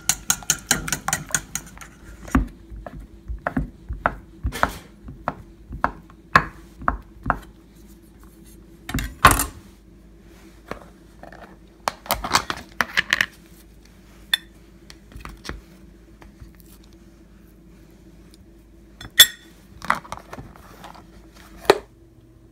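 A fork beating eggs against a stainless steel bowl, rapid ringing clinks for about the first two seconds. Then scattered clinks and knocks of utensils and dishes, two of them louder, over a faint steady hum.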